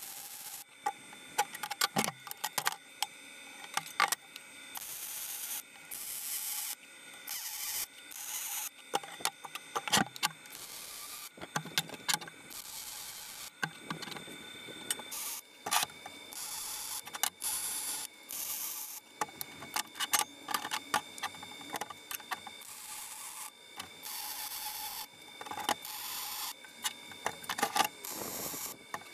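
MIG welding on square steel tubing with a Lincoln Electric 210MP: the arc crackles and hisses in a string of short welds, each a second or two long, broken by gaps and sharp clicks and knocks as the metal is handled.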